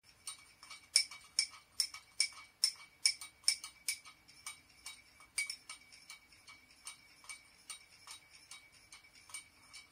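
A teaspoon stirring in a small porcelain cup, clinking against its sides in a ringing tick about two or three times a second, loud for the first few seconds and then fainter.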